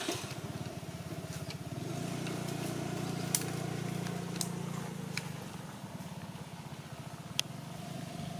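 A small engine running steadily with a low, fast-pulsing drone that swells about two seconds in and eases off after about five seconds, with a few sharp clicks over it.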